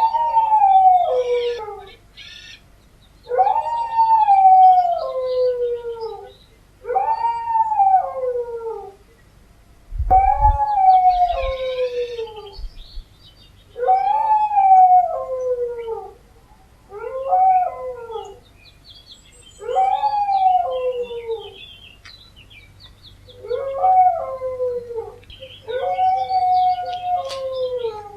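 Dogs howling: about nine long howls, one every three seconds or so, each sliding down in pitch, sometimes two voices at once.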